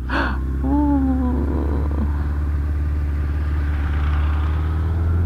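Motorcycle engine running steadily at low revs, with a brief burst of noise right at the start.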